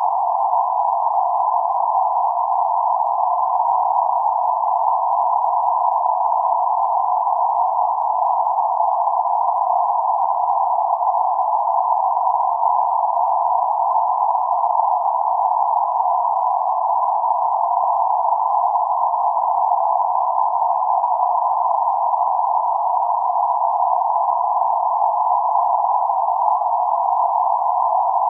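Synthetic band-limited noise centred around 848 Hz, a steady narrow-band hiss with nothing below about 500 Hz or above about 1.5 kHz. It holds an even level without any change.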